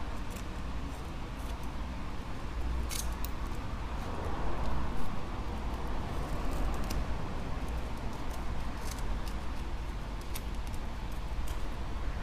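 A thin metal tool scraping and picking leftover glass fragments and adhesive off an iPad Air's frame: scattered short scratches and clicks over a steady low hum.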